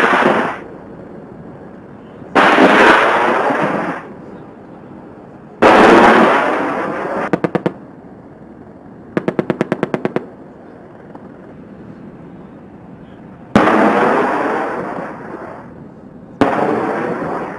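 AH-64 Apache attack helicopter firing on a range: four sudden loud blasts of rocket fire, each trailing off over a second or two. Between them come a few single shots and one short burst of about a dozen rapid rounds, about ten a second, from its 30 mm chain gun.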